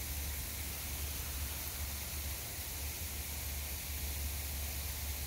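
Steady outdoor background noise: a constant low hum under a faint even hiss, with no distinct events.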